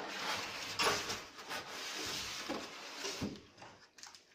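Polystyrene foam packing inserts rubbing and scraping against a cardboard box as they are pulled out, with a knock about a second in; the handling dies away near the end.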